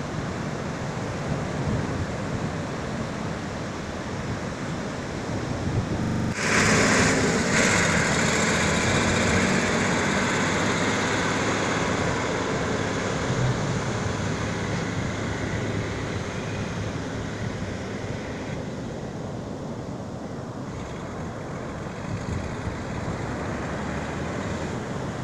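Surf breaking and wind on the microphone, with a tractor engine running as it pushes a boat trailer into the waves. The rush of noise gets suddenly louder about six seconds in.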